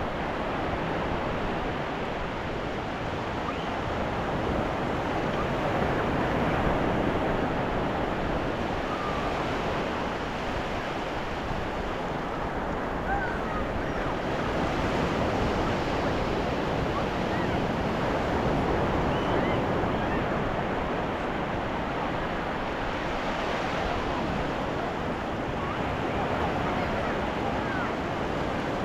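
Ocean surf washing onto a beach: a continuous rush of waves that swells louder every several seconds as each wave breaks and then eases.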